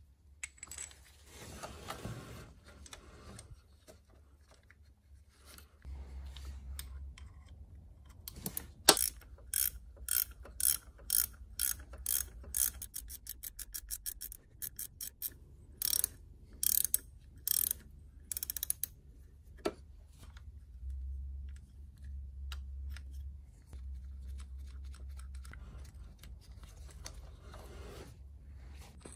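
Ratchet wrench clicking in runs of quick strokes, the clicks coming fastest around the middle, with quieter handling sounds before and after.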